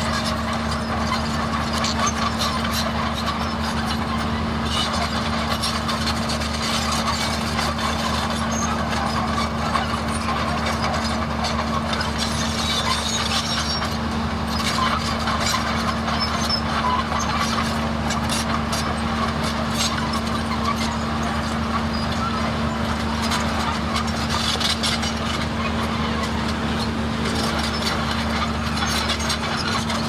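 Komatsu D31A crawler bulldozer's diesel engine running steadily under working load, a constant drone with a rough mechanical rattle over it.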